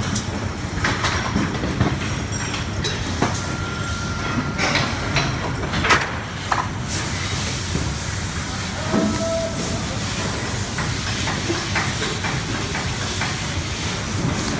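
Steady machine noise with a hiss from a working factory floor, with scattered clicks and taps from handling the hub motor stator and its wires.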